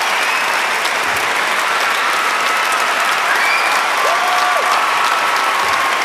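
Audience applauding steadily, with a few cheers rising above the clapping.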